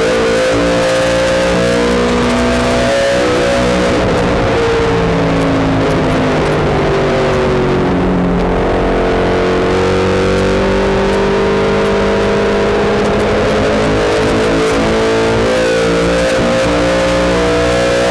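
Late model stock car's V8 engine heard from inside the cockpit at speed. Its pitch falls as the car slows into the turn about a quarter of the way in, then climbs steadily as it accelerates back out onto the straight.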